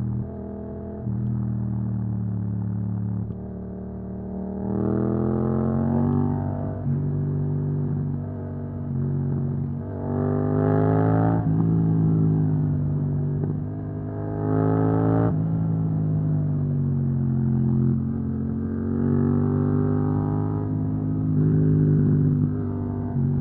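Yamaha MT-07 parallel-twin engine through an Akrapovic exhaust, accelerating hard several times. Its pitch climbs and falls back as it shifts and rolls off, with steadier cruising between the pulls.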